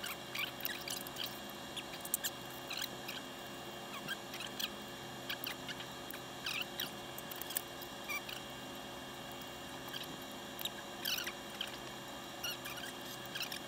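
Small scattered clicks, scrapes and squeaks of hands and tools working at the Y-axis motor coupler inside a Tormach mill's base, over a steady electrical hum.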